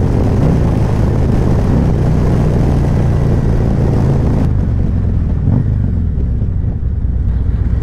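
Harley-Davidson Road Glide's stock Milwaukee-Eight 117 V-twin running through Khrome Werks slip-on exhausts as the bike slows from highway speed, with wind rushing over the microphone. The wind noise eases about halfway through as the speed drops.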